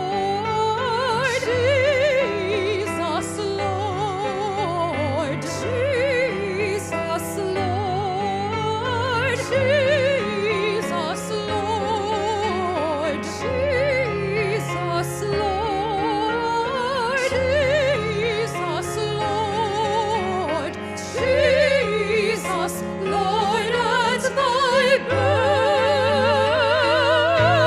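Live classical-style music: an operatic, vibrato-rich melody sung over sustained low accompaniment, swelling louder near the end.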